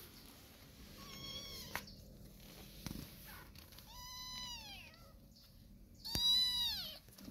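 Kitten mewing three times: high-pitched calls, each under a second, that drop in pitch at the end, the last one the loudest. A light knock comes between the first two calls.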